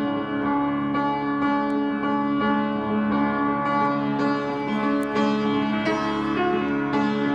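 Background instrumental music with sustained held notes that change slowly.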